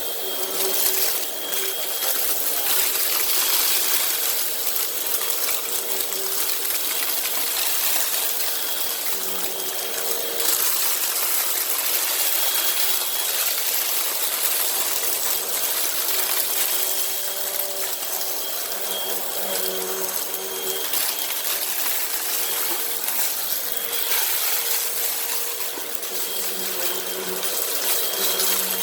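Hoover WindTunnel upright vacuum running steadily while it sucks up a heavy pile of dirt, sand, paper shreddings and leaves, with grit and debris rattling through it.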